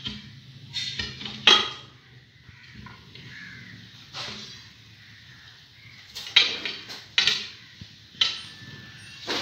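Steel tyre irons clanking and scraping against the steel rim of a light truck wheel as the tyre bead is levered off: irregular sharp metallic clanks with a short ring, bunched most closely a little after the middle.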